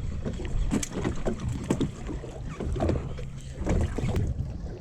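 Small fishing boat at sea: a steady low rumble of wind and water against the hull with a faint engine hum, broken by scattered knocks and clicks.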